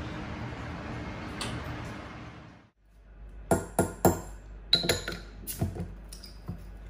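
A steady rushing background noise, which cuts off about three seconds in. Then a metal bottle opener clicks and clinks sharply several times against the crown cap of a glass beer bottle as the cap is pried off.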